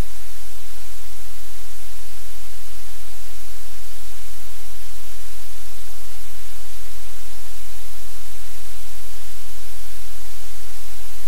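Loud, steady static hiss, even and unbroken, with a low hum beneath it.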